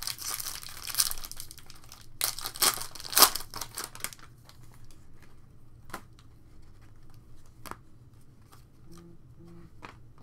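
Foil trading-card pack being torn open and crinkled, in two spells over the first four seconds, loudest a little after three seconds in. After that come occasional short clicks as the cards are handled.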